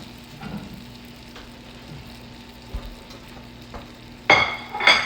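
Eggs and sautéed vegetables sizzling steadily in a frying pan, with two louder scrapes of a spatula against the pan near the end.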